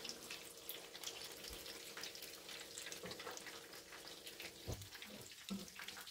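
Spring rolls deep-frying in hot oil in a wok, with a faint, steady sizzle and crackle. A few soft knocks come near the end as the slotted spoon and spatula turn the rolls.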